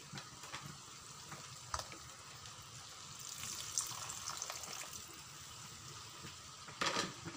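Crab pieces in red chilli sauce sizzling in a frying pan, with a thin stream of water poured in around the middle. A single knock about two seconds in, and near the end a wooden spatula scrapes and stirs the pan.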